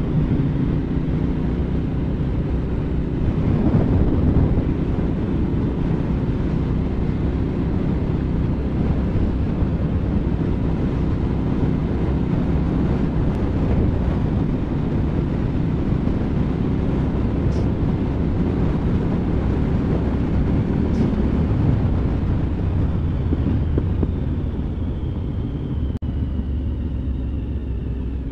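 Motorcycle engine running steadily at road speed, with wind noise on the helmet microphone; it eases off a little near the end.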